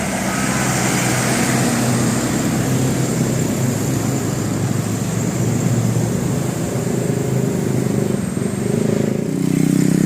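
Road traffic: engines of vehicles running past, a steady rumble. A lower engine note grows stronger about nine seconds in.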